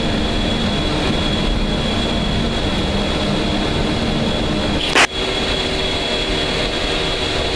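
KC-135 Stratotanker cockpit sound just after rotation on takeoff: a steady rush of engine and airflow noise with a thin, steady high whine over it, and a single sharp click about five seconds in.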